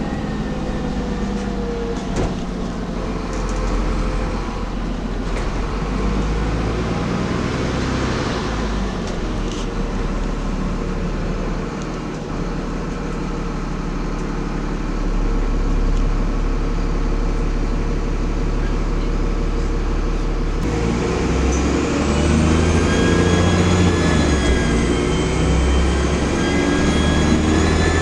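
Dennis Trident double-decker bus's diesel engine heard from on board, running with some knocks and rattles. About twenty seconds in the engine pulls harder and the turbocharger whistle comes in as a high rising tone, holds for several seconds, then drops away near the end.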